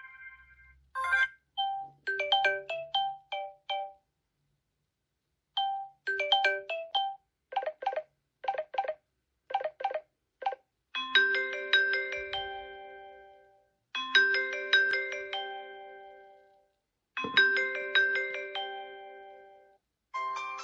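Samsung Galaxy S7 edge ringtones and notification sounds played one after another: short bell- and mallet-like melodic jingles separated by brief silences. In the middle comes a run of short tones about two a second, and in the second half one chiming phrase repeats three times before a new tone starts at the very end.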